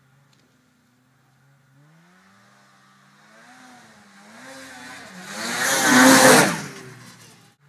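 Snowmobile engine revving up and down, growing louder to a peak about six seconds in, then dropping away quickly.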